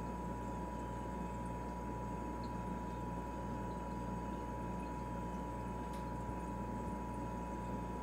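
Refrigerator running with a steady low hum, a thin steady tone above it.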